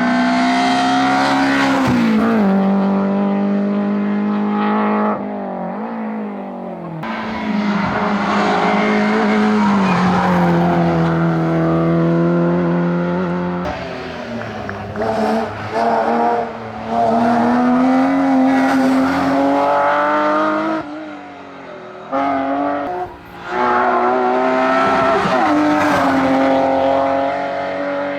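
Rally cars run flat out on a tarmac stage: first a Peugeot 205 revving hard, its engine pitch climbing and dropping sharply with each gear change and throttle lift. After a cut about halfway through, a BMW 323 ti's straight-six takes over, revving high with quick shifts and lifts for corners.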